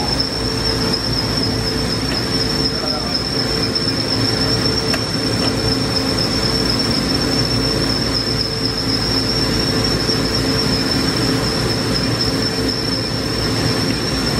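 Okuma MILLAC 800VH 5-axis machining center running under power: a steady high-pitched whine over a lower hum and machinery noise.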